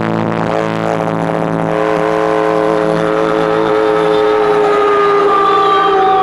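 Electric guitar and bass through amplifiers holding one long, sustained droning chord without drums, its several notes steady and ringing on.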